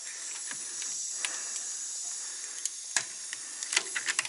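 Compressed air hissing steadily from a leaking quick-disconnect air-line fitting on a truck's air system, with a few faint clicks. The fitting leaks because the hose end is worn and no longer seals.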